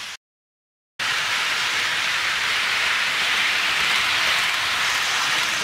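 A loud, steady hissing noise with no pitch or rhythm, starting abruptly about a second in after a moment of dead silence.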